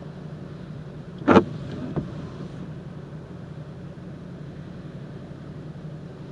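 Steady low hum of a car idling, heard from inside the car. A sharp knock sounds about a second in, with a fainter one just after.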